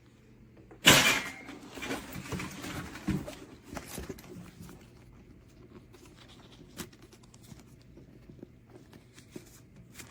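Rustling and handling noise: a sudden loud scrape about a second in, then a few seconds of rustling with scattered clicks that grow sparser.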